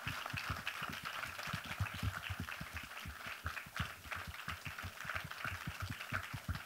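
Audience applauding: many hands clapping, dense and steady throughout.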